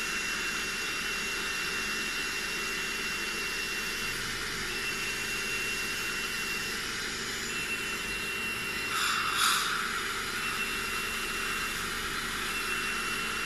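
Dental suction hissing steadily while a high-pitched tone sounds in stretches of one to two seconds, the dental laser's tone while it fires. About nine seconds in, the suction gives a brief louder slurp.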